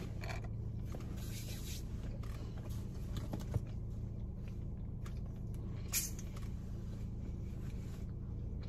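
Steady low hum inside a car's cabin, with a few faint rustles and small clicks from a plastic soda bottle being handled, including one sharper click about six seconds in.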